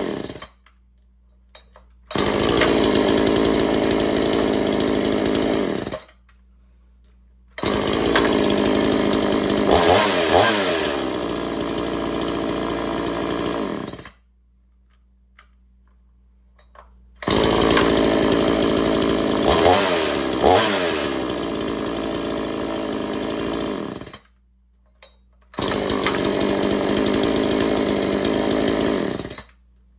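Homelite Super XL two-stroke chainsaw started four times. Each time it catches at once, runs for about four to seven seconds and cuts off abruptly at the kill switch. In the two longer runs it is revved up and down briefly in the middle.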